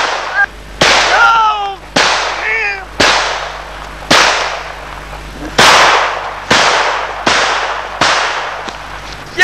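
Pistol shots, about eight of them, fired one every second or so, each a sharp crack with a short ringing tail. Short yells come between the first few shots.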